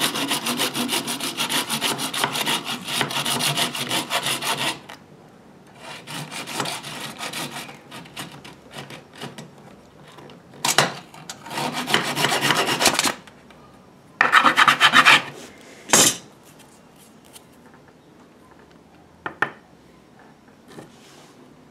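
Hacksaw cutting through PVC plastic pipe, with rapid, steady strokes for about the first five seconds. Then come shorter bursts of sawing with pauses, and a few sharp light knocks near the end.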